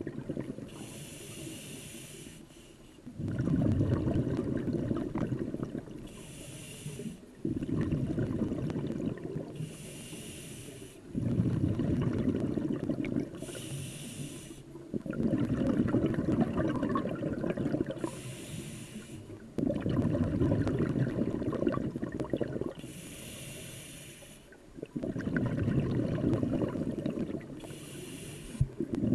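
Scuba diver breathing through a regulator underwater. Each breath is a short hiss on the inhale followed by a longer stretch of exhaled bubbles, about seven breaths in a steady rhythm.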